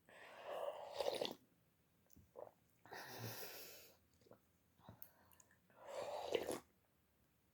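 Close-up eating sounds of a person having instant vermicelli noodles: three long breathy mouth noises of a second or more each, with small wet chewing clicks between them.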